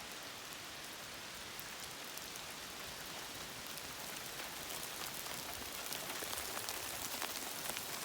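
Steady rain, with many close drops ticking sharply, growing a little louder and denser in the second half.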